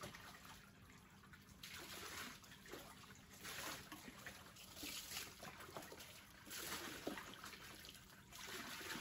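Water scooped from a tub and poured from a plastic dipper over a wet dog's coat, splashing and trickling back into the tub in about five separate pours, one every second and a half or so.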